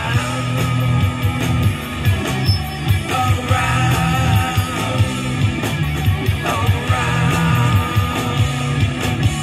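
Live rock band playing: a singer over electric guitars and bass with a steady drum beat.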